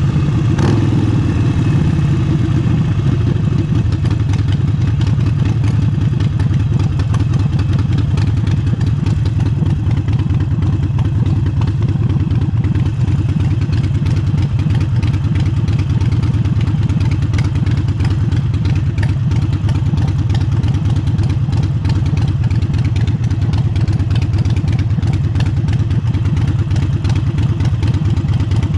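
Harley-Davidson Forty-Eight's air-cooled V-twin with an aftermarket exhaust, running steadily under way, with wind buffeting the helmet-cam microphone.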